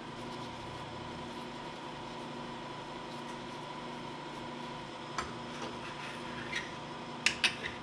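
Light clicks and knocks of a tractor air cleaner's wing nut and old filter element being handled as the element is pulled from its housing, heard in the second half over a steady background hum.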